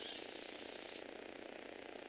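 Lego Technic gymnast's small electric motor and spur gear train running as the figure circles the bar, a steady fine gear rattle. A brief higher hiss joins in right at the start.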